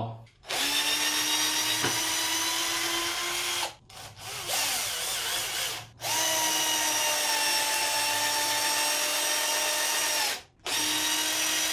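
BR Motors 12 V cordless drill/driver running under load as it drives long 6 mm Phillips screws into wood without a pilot hole. The motor whines in several runs of a few seconds, stopping briefly between them.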